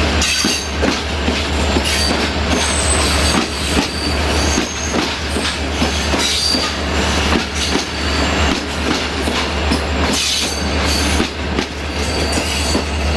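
Passenger train rolling slowly through a station, heard from an open coach window: wheels knocking over rail joints and points, with brief high-pitched wheel squeals.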